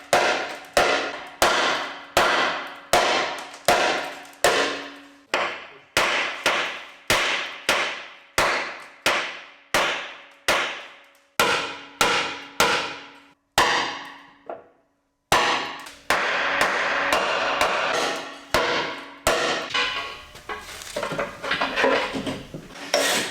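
Hammer blows ringing on a steel truck frame, struck about twice a second as the frame's buckles are worked out on a frame rack. A short stretch of steady noise comes after the mid-point break, followed by faster, irregular strikes.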